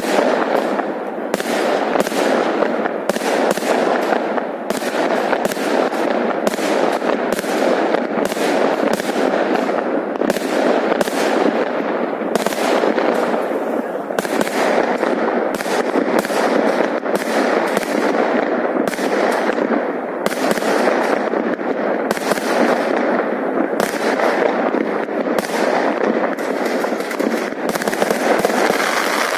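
Fireworks going off in a continuous barrage: many aerial bursts bang and crackle over one another without a break.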